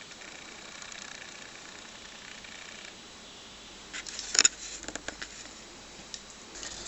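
Faint steady whine of a camera's zoom motor for about three seconds. Then a quick cluster of sharp clicks about four seconds in, with a few lighter ticks after.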